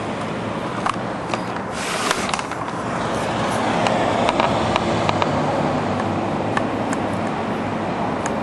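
Steady rumble of distant engines, swelling about four seconds in, with a brief hiss near two seconds and scattered small clicks.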